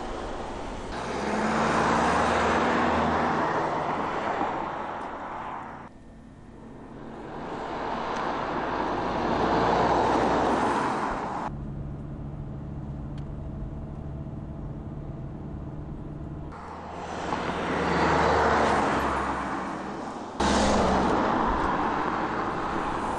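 Mercedes-Benz CLC C220 CDI four-cylinder diesel coupe driving past several times, each pass a swell of engine and tyre noise that rises and fades. About halfway there is a quieter stretch of steady engine hum heard from inside the cabin, and near the end a sudden cut to another loud pass.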